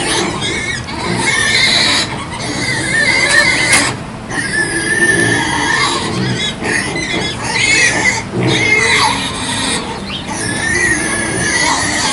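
Farm animals calling: a chorus of overlapping high, wavering squeal-like calls, with short breaks about 4 and 8 seconds in.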